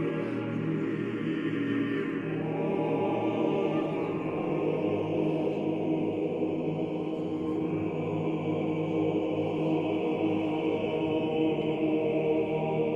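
Church choir chanting in slow, long-held chords.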